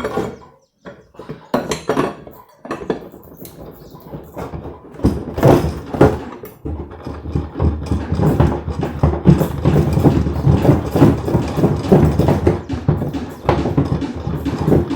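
Washing-machine drum and spider being worked loose with two metal levers: an irregular run of scraping, creaking and knocking, quieter at first and louder and denser from about five seconds in.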